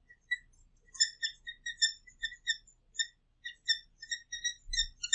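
Dry-erase marker squeaking across a whiteboard while writing: a quick run of short, high-pitched squeaks, one for each stroke of the letters.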